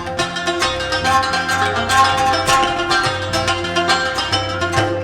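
Afghan rubab and tabla playing the instrumental close of a Persian folk song: rapid plucked string notes and drum strokes over a sustained drone, breaking off right at the end.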